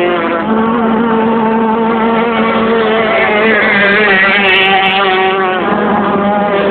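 Racing powerboat engines running at high revs. Several engine notes are heard at once, and their pitch drifts up and down as the boats pass, with one note dropping about five and a half seconds in.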